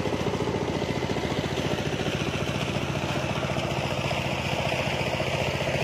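A small engine running steadily at an even, fast-pulsing idle.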